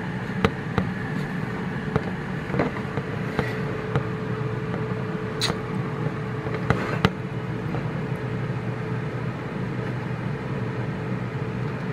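CruxGG Trizone air fryer running while it cooks, its fan giving a steady hum with one steady tone through it. A few light clicks and knocks sound over it, mostly in the first seven seconds.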